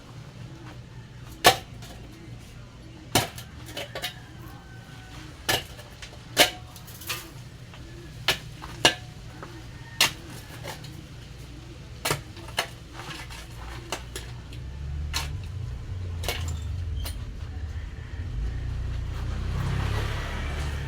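Irregular sharp knocks and clinks, about a dozen, from hand tools striking hard material, over a low rumble that grows louder in the second half.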